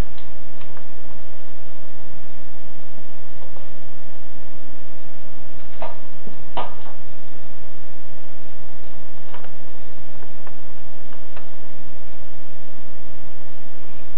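Steady electrical hum with a few sharp, isolated ticks, two close together about six seconds in and single ones later.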